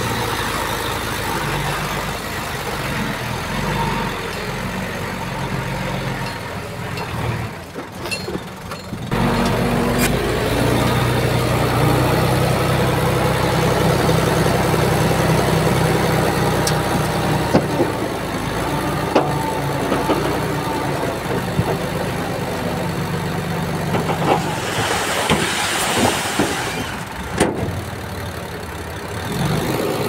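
Komatsu crawler bulldozer's diesel engine running under changing load. Its note dips briefly about eight seconds in, then holds steady and louder. A few sharp clanks come through, and there is a burst of hiss near the end.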